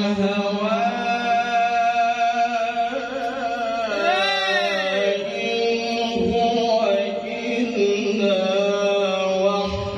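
A qari's voice in melodic Quran recitation (tilawah), holding long ornamented notes into a handheld microphone, with a fast wavering trill about four seconds in.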